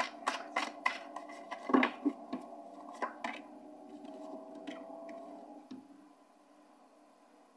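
Irregular light clicks and taps of small objects handled on a table over a faint steady hum, thinning out and falling almost quiet about six seconds in.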